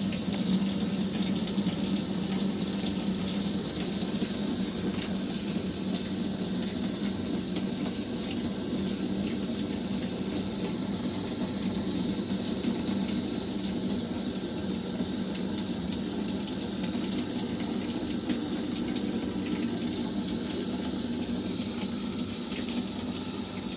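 Samsung VRT Plus top-load washing machine filling its drum with water at the start of its self-clean cycle: a steady rush of water pouring in.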